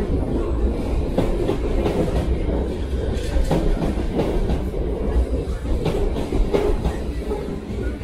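c2c Class 357 Electrostar electric multiple unit running out past close by along the platform: a steady low rumble with wheels clicking irregularly over the rail joints.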